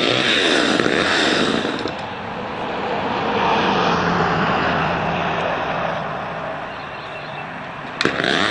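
Homelite XL two-stroke chainsaw revving, dropping back to a lower steady running about two seconds in, then revving up again after a sharp click near the end.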